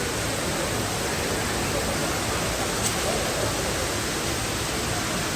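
Steady rush of a large indoor waterfall cascading down several storeys, an even unbroken roar of falling water, with faint voices in the background.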